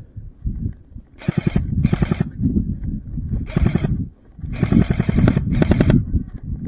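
Airsoft gun firing five short full-auto bursts, each a rapid string of shots lasting under half a second, with brief pauses between them.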